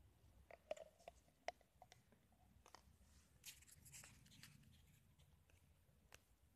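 Faint handling of a clear plastic cup and its plastic lid: a few sharp plastic clicks in the first two seconds, a short rustle a little past the middle, and one more click near the end.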